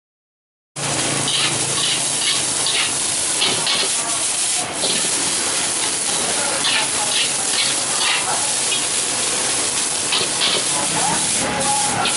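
Rice sizzling in a wok over a gas burner, starting about a second in, with a metal spatula scraping and clinking against the wok as the rice is stirred and tossed.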